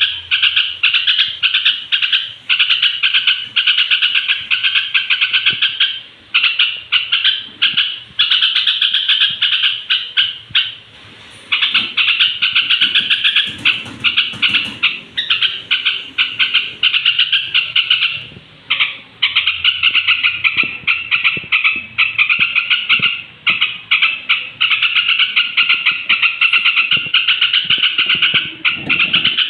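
Yellow-vented bulbul (trucukan) singing its evening pre-roost song: long runs of rapid, bubbly chattering notes, broken by a few brief pauses.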